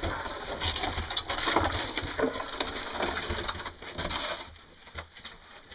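Irregular crunching and rattling as a wheeled ground-penetrating radar cart is pushed along a dirt tunnel floor, with footsteps. The noise is louder for the first four seconds or so, then fainter.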